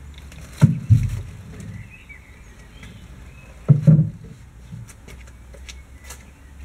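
Wooden pirogue hull knocking as it is shifted on a skateboard: two pairs of dull, hollow thumps, the first about half a second in and the second near four seconds. Birds chirp faintly in the background.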